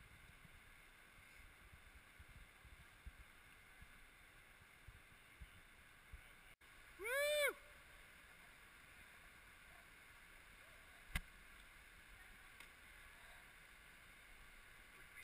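Faint, muffled steady rush of river water heard through a waterproof camera housing. About seven seconds in, a single short call rises and falls in pitch, and a sharp click follows about four seconds later.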